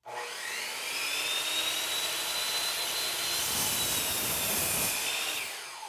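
Skil miter saw's motor starting with a rising whine and holding at full speed. About three and a half seconds in, the blade crosscuts a wooden board, adding a rougher cutting noise for a couple of seconds. Near the end the trigger is released and the motor winds down.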